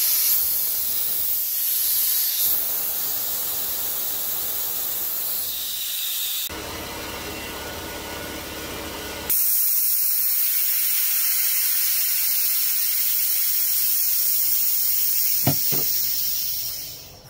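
Compressed air from an air compressor venting through an opened ball valve in a loud, steady hiss. The hiss drops and changes tone for about three seconds midway, then comes back and fades out near the end.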